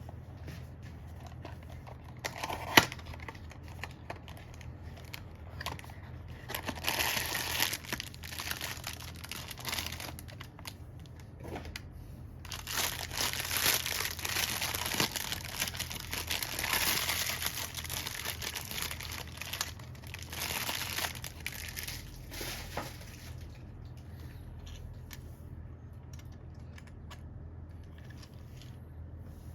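Packaging crinkling and tearing as a figurine is unwrapped, in bursts with a long stretch in the middle, and a sharp click about three seconds in. A steady low hum runs underneath.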